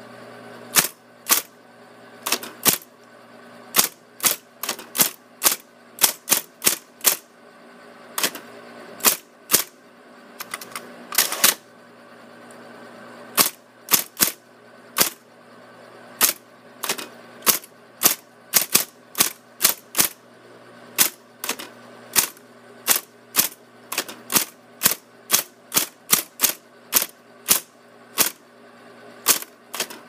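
Smith Corona Coronet Super 12 electric typewriter typing: sharp type-bar strikes at an uneven pace of about two to three a second, with short pauses between words. About eleven seconds in comes a longer clatter as the carriage returns to a new line.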